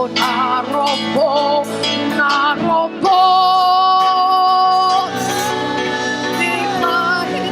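Worship music: a voice sings a slow, wavering melody over sustained instrumental accompaniment, holding one long note from about three to five seconds in.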